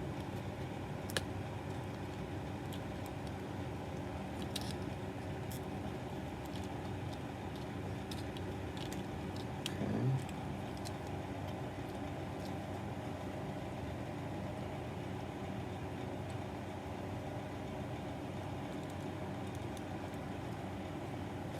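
Steady mechanical hum with a few sharp small clicks and taps, about a second in, near five seconds and around ten seconds, from the plastic display-stand parts being handled.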